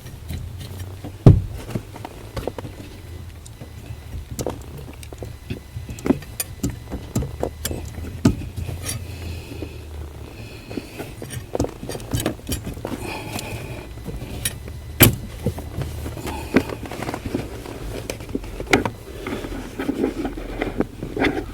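Irregular metallic clicks and knocks from hands and tools working on the car's steering parts, over a low steady hum. The loudest knocks come about a second in and again about fifteen seconds in.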